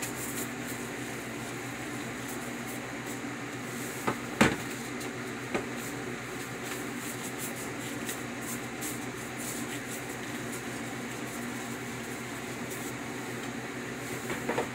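Steady low hum of a running kitchen appliance or fan, with a couple of light knocks about four seconds in and another a second later.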